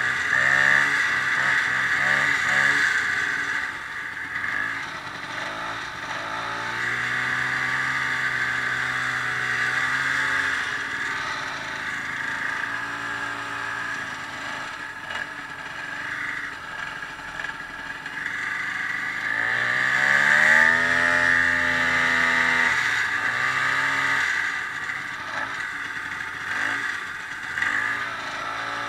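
Ski-Doo snowmobile engine running under way. It climbs in pitch as it speeds up about six seconds in and again, loudest, around twenty seconds in, easing off in between.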